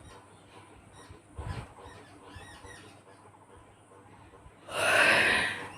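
A woman yawning: a few quiet seconds with faint high chirps, then a loud breathy yawn exhale lasting about a second near the end.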